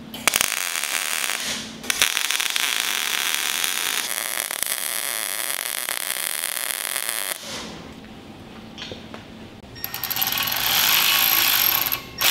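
MIG welding on steel exhaust tubing: a short crackling tack weld, then a steady crackling bead lasting about five seconds. Near the end a cordless die grinder runs against the exhaust pipe with a high, steady whine.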